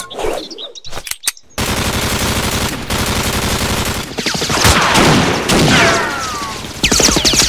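Rapid, continuous gunfire sound effects like a machine gun. They start suddenly after a brief hush with a few clicks, with descending whines over the shots near the middle and again near the end.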